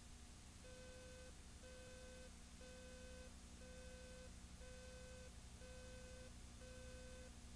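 Countdown leader beeps: a short electronic tone of about two-thirds of a second, sounding once a second, seven times, with an eighth starting at the very end. Faint, over a low steady hum and hiss.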